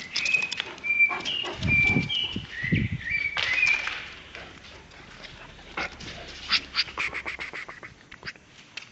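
Caucasian Shepherd dog whining in a string of short, high-pitched notes through the first four seconds, with a couple of low thumps about two seconds in and light clicks scattered through the rest.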